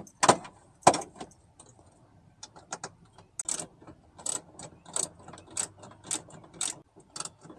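Socket ratchet clicking in short strokes, about one and a half a second, as an 8 mm bolt holding a power-window motor inside a door is backed out; two sharper clicks come first.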